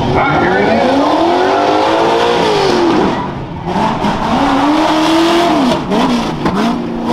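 Off-road race buggy's engine revving hard as it launches from a standing start and accelerates, the pitch climbing for about two and a half seconds, dropping sharply near three seconds in, climbing again, then dipping twice near the end as the driver lifts and gets back on the throttle.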